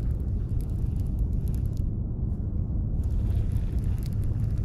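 Steady low rumble of wind buffeting the microphone over open water, with faint light ticks.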